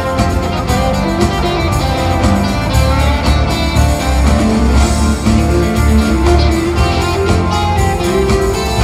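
Live rock band playing an instrumental passage: electric guitars over bass, drums and keyboards, with a strong, steady bass line. Heard from the audience in a large arena.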